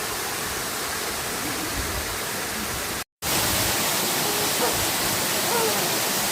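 Waterfall cascade rushing steadily. The sound cuts out for an instant about three seconds in and comes back a little louder.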